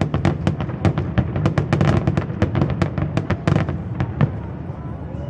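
Fireworks display: a rapid volley of sharp bangs and cracks, several a second and densest in the middle, thinning out and stopping about four seconds in.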